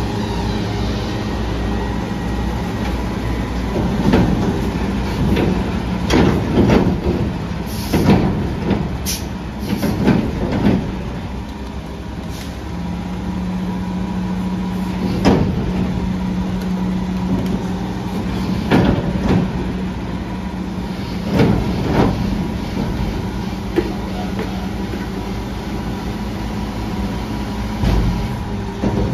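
Pak-Mor commercial side loader garbage truck running while its arm lifts and tips a commercial dumpster into the hopper, with a steady engine drone throughout. Repeated metal bangs and clanks come as the container is shaken out and the trash falls in. About midway a steady hum sets in and holds until near the end.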